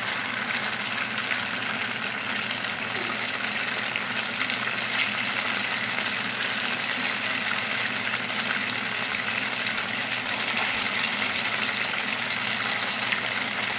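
Hot oil sizzling steadily in a frying pan as cubes of steamed tofu are shallow-fried in it, more cubes being dropped in by hand; the oil foams around the wet tofu.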